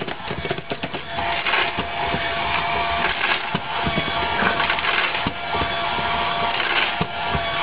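A cat crunching dry kibble from the bowl of an automatic pet feeder: dense crackly chewing with many small clicks. A steady hum starts about a second in.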